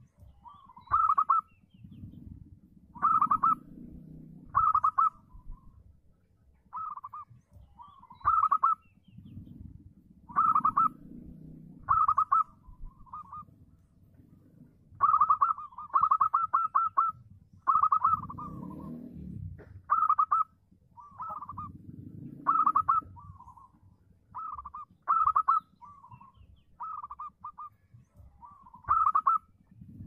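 Local zebra dove (perkutut) cooing in full voice: short bursts of rapid, stuttering notes, repeated every second or two.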